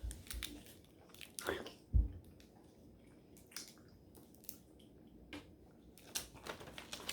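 Someone chewing and biting a snack, with small wet mouth clicks and a low thump about two seconds in.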